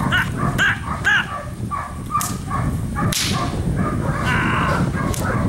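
An agitation stick whip cracks twice, about two and three seconds in, while a Dutch shepherd works a bite sleeve. Short vocal calls come in the first second.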